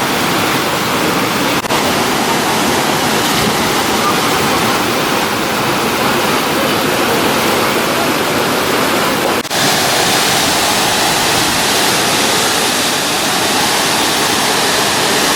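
Waterfall rushing loudly and steadily close by, broken only by two brief drop-outs.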